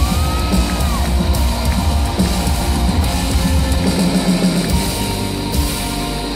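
Live band playing a loud instrumental passage, with piano, keyboards and drums.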